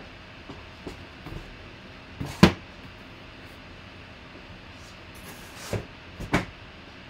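Cardboard boxes being handled and set down on a table: knocks and thumps, the loudest about two and a half seconds in and two more near the end.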